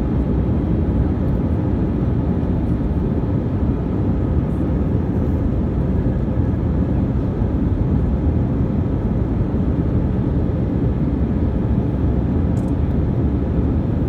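Steady cabin noise of an Airbus A319-132 airliner descending on approach: a constant deep rumble of its IAE V2500 turbofan engines and the airflow over the fuselage, heard from a window seat beside the wing.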